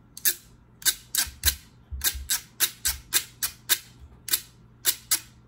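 A chopstick scraped along the ridges of a bare metal food can, played as a scraper instrument: a run of short rasping strokes, about three a second, some in quick pairs.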